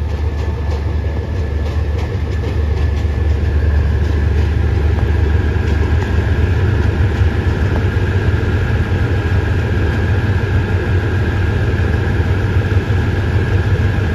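Diesel locomotive of an express passenger train running as it pulls into the station: a loud, deep engine drone, with a steady high whine joining about three seconds in.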